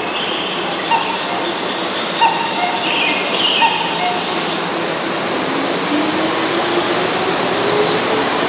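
Keihan 6000-series electric commuter train pulling out along a station platform, its wheels rumbling steadily. A few sharp clicks come in the first few seconds. From about the middle on, a traction motor whine climbs steadily in pitch as the train accelerates.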